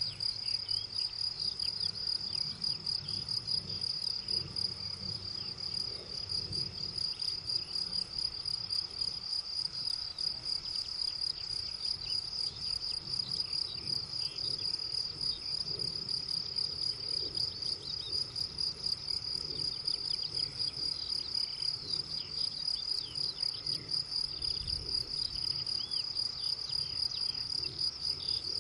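Meadow insects stridulating in the grass: a continuous shrill buzz with a fast, even pulse. A faint low rumble sits underneath.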